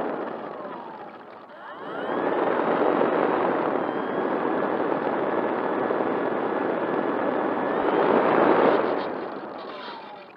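E-flite Turbo Timber RC plane's electric motor and propeller throttling up while taxiing, heard from its onboard camera: a rush of propeller wash over the microphone with a faint motor whine that rises in pitch about two seconds in. It holds steady, then eases off near the end as the throttle comes back.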